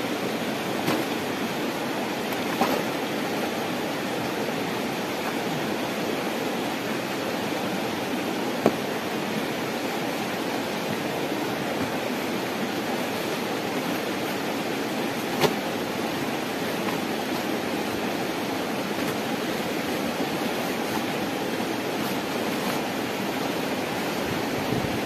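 A steady rushing noise with no pitch, in the manner of running water, continues unchanged throughout. Over it come a few sharp knocks as gear and feet are moved about on the wooden pole floor; the loudest is about a third of the way in.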